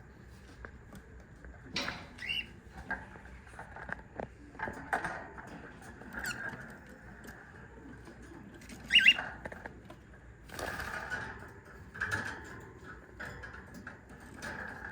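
Scratching and rustling mixed with short cockatiel chirps. The loudest, a sharp chirp, comes about nine seconds in.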